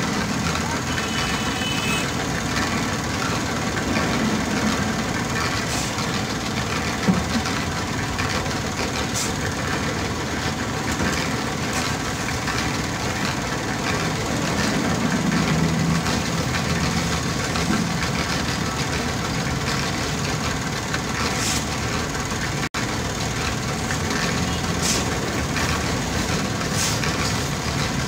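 An engine running steadily, with a few short ticks over it.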